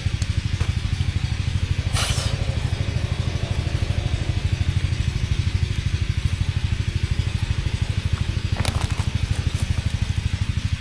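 Small boat engine running steadily with a fast, even chugging beat. Two short noises stand out over it, about two seconds in and near the end.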